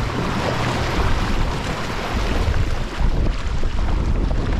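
Inflatable dinghy under way on choppy water: wind buffeting the microphone over the steady run of its outboard motor and water splashing against the tubes.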